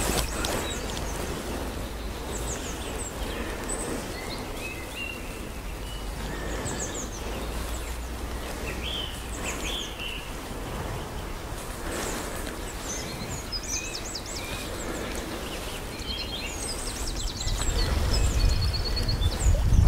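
Small songbirds singing, with short high chirps and trills from several birds, over a steady low background rumble that grows louder near the end.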